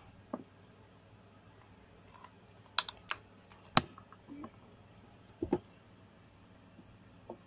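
Scattered small clicks and taps of objects being handled close to the microphone, about six in all, the sharpest a little under four seconds in.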